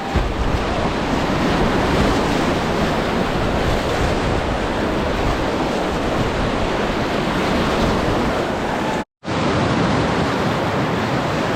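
Loud, steady rush of whitewater river rapids, with water and wind noise buffeting the camera microphone. It breaks off for an instant about nine seconds in, then carries on as before.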